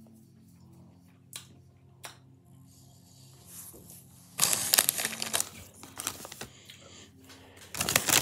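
Crisp packets crinkling and rustling close to the microphone: a loud crackly burst about four seconds in and another near the end, with a faint click or two before.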